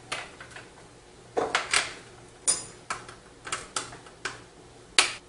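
Power and SATA cables being handled and pushed into the SSDs on the back of a PC case: an irregular string of sharp clicks, taps and rustles against the steel case panel, the loudest knock about five seconds in.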